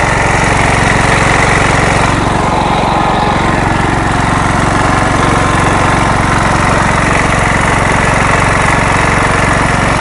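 MTD riding lawn mower's small engine running steadily, loud and close.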